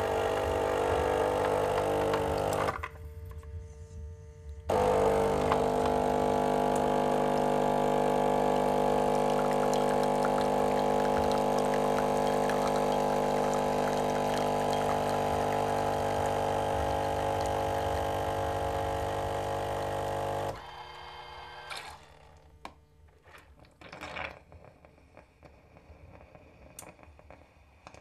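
The coffee grinder of a brand-new Krups bean-to-cup espresso machine running with a loud, steady motor hum. It runs briefly, stops for a couple of seconds, then runs again for about sixteen seconds before cutting off, followed by a few faint clicks. The grinder is noisy but the beans are not going through it: the new machine is faulty.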